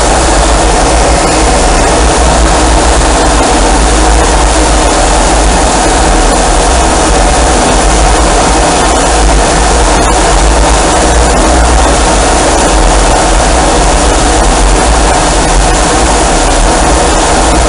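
Steady, loud roar of a carrier fighter jet's engines running on the flight deck, mixed with wind buffeting the microphone. It holds level throughout, with no spool-up or fly-by.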